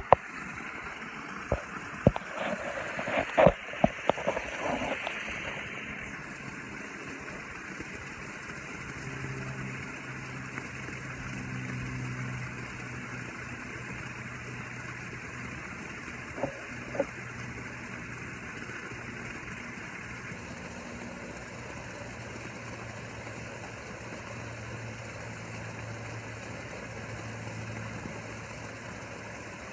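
Knocks and rubbing as a phone is handled and set down on a padded lounger, then a steady splashing hush of a pool's waterfall feature. A low engine-like hum joins it about a third of the way in.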